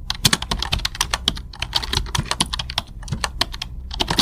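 Rapid, irregular clicking or tapping, many sharp clicks a second, like keys being typed.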